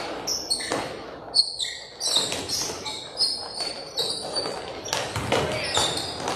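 Basketball dribbled on a hardwood gym floor, a string of sharp bounces, with sneakers squeaking on the court.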